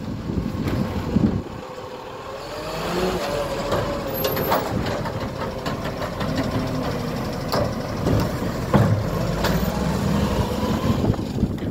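Side-loading garbage truck's automated arm lifting and tipping a wheelie bin: the engine revs up under the hydraulic load with a wavering whine that rises and falls, and several sharp clunks as the bin is gripped, emptied and set down.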